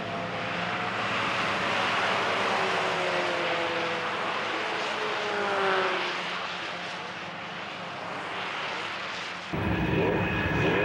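Mazda Roadster (MX-5) race cars' engines passing at speed, the pitch falling as each one goes by. About nine and a half seconds in the sound cuts abruptly to a louder engine note.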